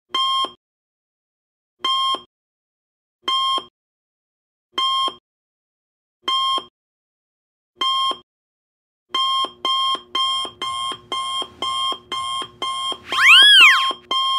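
Electronic patient-monitor beeping as a cartoon sound effect. A buzzy beep sounds about every second and a half, then the beeps quicken to two or three a second about nine seconds in. Near the end comes a loud swooping tone that rises and falls.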